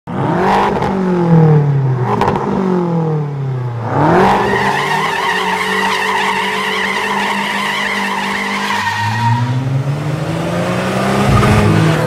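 Car engine revving hard: two quick revs that rise and fall, then a long pull that climbs and holds at high revs, drops back and climbs again near the end.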